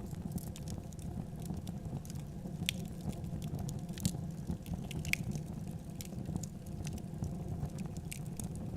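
Wood fire in a fireplace crackling, with a steady low rumble of burning and scattered sharp pops, a few louder ones about three, four and five seconds in.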